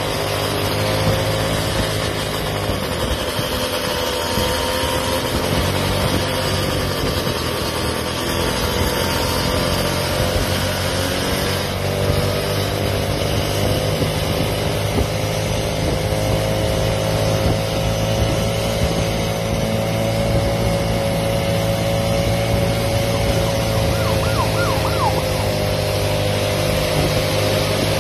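Motorised stand-up scooters running at a steady cruise: a continuous motor whine whose pitch drifts slowly up and down with speed, over a steady rush of road and wind noise.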